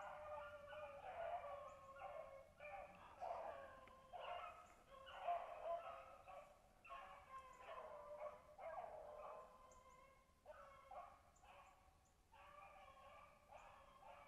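Faint pack of beagles baying in overlapping bouts, several voices at once: hounds running a rabbit's trail.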